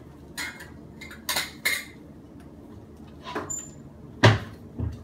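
Kitchen containers and utensils being handled on a countertop: about half a dozen separate clinks and knocks. The loudest is a heavy knock with a dull thump about four seconds in, and another knock comes just before the end.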